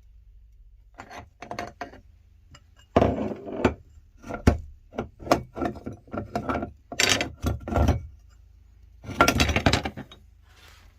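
Irregular knocks, scrapes and clinks of hard objects being handled, over a faint steady low hum. They come sparse at first, then in a dense run, with a louder scrape near the end.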